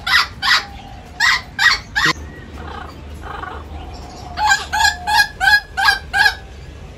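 Amazon parrot calling in short repeated squawks. There are about five in quick succession over the first two seconds, then after a pause a second run of about six.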